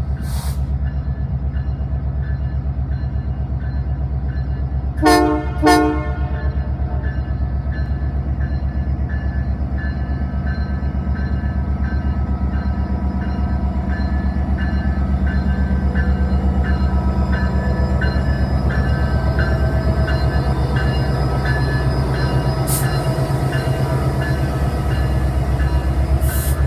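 Diesel locomotive running as the train pulls out, a steady low drone throughout. About five seconds in the horn gives two short toots. A regular rhythmic ringing follows, the locomotive bell, as the lit cars roll past.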